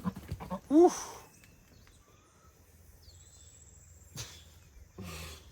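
Faint outdoor background with a single sharp knock a little past four seconds in and a short scuffling noise near the end.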